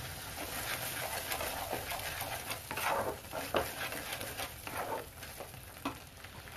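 Thick onion-tomato masala sizzling in a kadhai while a spatula stirs it, scraping across the pan in a run of strokes through the middle.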